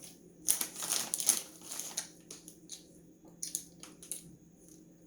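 Plastic candy packaging being handled and crinkled in several quick rustling bursts over the first two seconds, then a few short sharp clicks and rustles.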